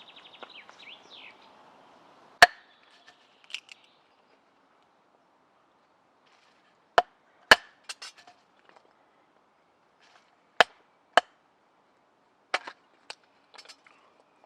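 Firewood being chopped: a series of sharp wooden strikes, each with a brief ringing knock, spaced irregularly, a few seconds apart at first and then closer together.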